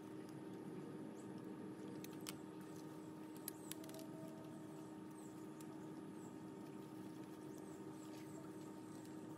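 Quiet outdoor ambience: a steady low hum with faint, short high chirps now and then, likely small birds. A few light clicks about two and three and a half seconds in come from handling the plant tie and bamboo stakes.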